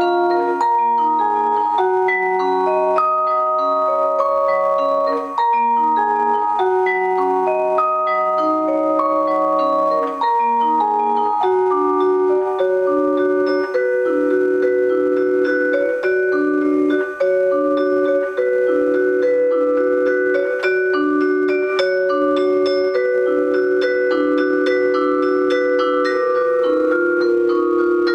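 Vibraphone played with four yarn mallets: a melody of ringing notes that hold and overlap, over a repeating lower figure in the second half.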